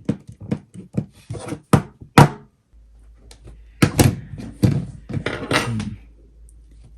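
Irregular clicks, taps and knocks of a phone and screwdriver being handled and worked on a hard surface during disassembly, the two loudest knocks about two seconds in, then a second cluster of knocks and scraping from about four to six seconds in.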